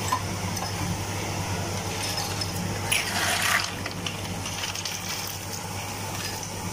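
Ice cubes tipped from a plastic scoop into a glass mug, sliding and clinking into the glass in a short rattle about three seconds in, with a few lighter clicks later, over a steady background hum.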